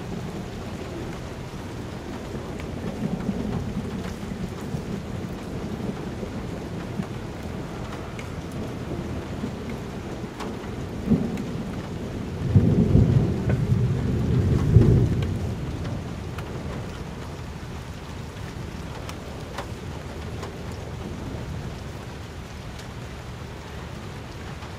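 Steady rain falling throughout. About halfway through, a sharp crack is followed by a low rolling rumble of thunder lasting about three seconds, the loudest sound here.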